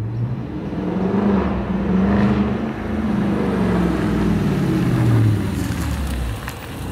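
Dodge Challenger's engine running as the car pulls slowly forward, its note rising and falling with light revs.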